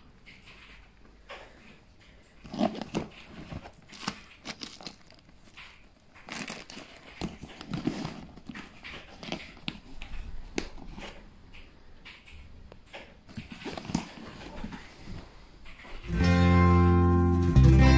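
Rustling and handling noises around a fabric bag, with cats moving about and a few short cat calls. About two seconds before the end, loud music with sustained low notes starts suddenly and drowns everything else.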